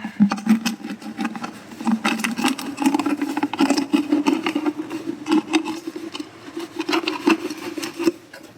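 A knife cutting and scraping a plastic bottle to shape a fish trap: a quick run of clicks and scrapes over a steady low hum.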